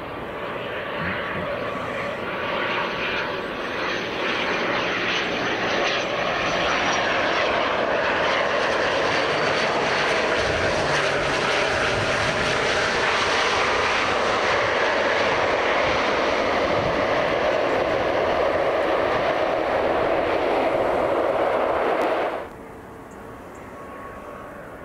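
Airliner's engines at high power, the noise building over the first several seconds into a steady, loud rush with a faint high whine. It cuts off suddenly near the end.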